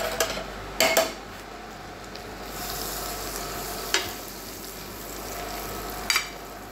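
Garlic and parsley butter sizzling as it melts in a hot frying pan, stirred with a metal spoon that scrapes and knocks against the pan about four times, loudest about a second in.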